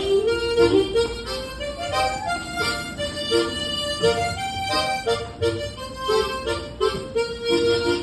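A harmonica played solo: a melody line over rhythmic chord pulses that the player makes with mouth shaping and tongue technique, with no backing music.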